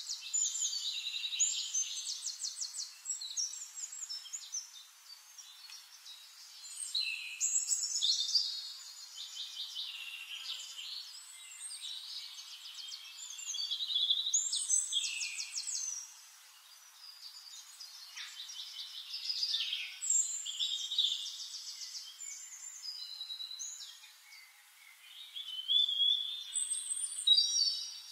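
Birds singing: phrases of fast trills and high whistles, one after another, with short pauses every few seconds.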